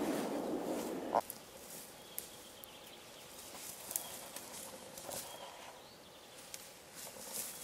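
The fading echo of a .30-06 rifle shot rolling away over forest, cut off abruptly about a second in. Then faint open-air quiet with a few scattered small high ticks.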